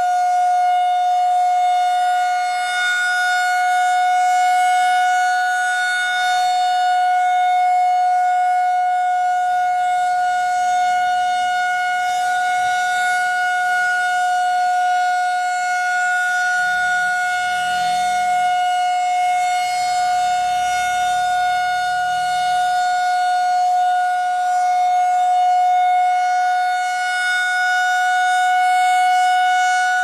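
Federal Signal 2001-130 rotating warning siren sounding one steady, loud tone. It swells and fades as the horn turns toward and away from the listener.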